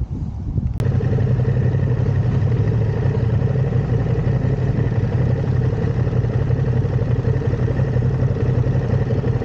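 Ducati Streetfighter V2's twin-cylinder engine running steadily at low revs, heard from about a second in.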